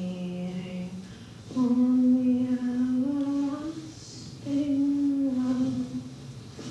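A woman singing a slow melody in long held notes, in three phrases with short pauses between them.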